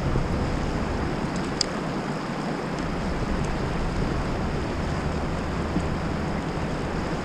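Steady rush of wind and choppy river water around a kayak, with wind buffeting the microphone and gusting up and down in the lowest register.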